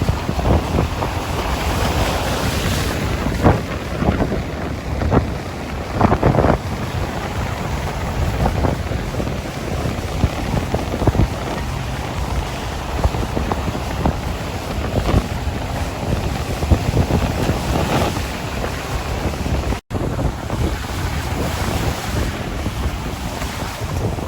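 Sea waves washing and splashing at the shore, with wind rumbling on the microphone, broken by short sharper splashes. The sound drops out for an instant near the end.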